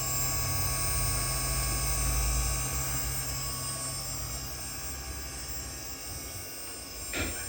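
Lenze MDSKSR056-33 servo motor spinning on its EVS9322-ES servo drive, a steady whir with a low hum and steady high tones. The low hum drops away about three seconds in and the sound eases down as the motor runs down. A brief knock near the end.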